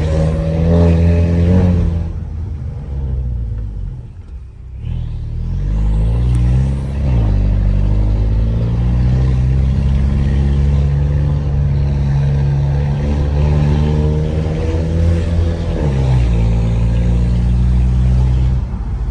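Volkswagen Jetta 2.0 TSI turbo four-cylinder with a modified exhaust, pulling hard up a hill. The engine note drops off about two seconds in, then picks up again with a rising turbo whistle and holds a steady note under load, changing once more near the end.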